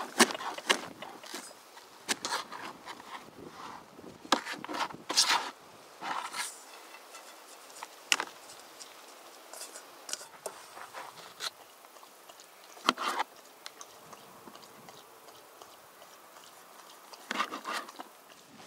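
A knife chopping fresh parsley on a plastic cutting board: quick irregular taps for the first few seconds. After that come scattered knocks and scrapes, with a short burst about thirteen seconds in and another near the end.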